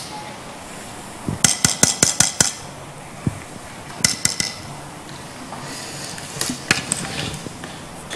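Sharp wooden taps from sticks struck on banduras, coming in quick runs: about ten rapid taps between one and two and a half seconds in, a shorter run about four seconds in, and a few more near seven seconds.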